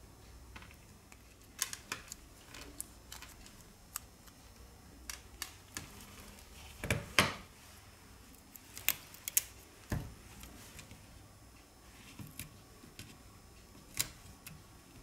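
Irregular small clicks and taps from handling the opened BQ Aquaris X Pro's internals: flex cables and their connectors being pressed and lifted on the mainboard, with a few sharper snaps around the middle.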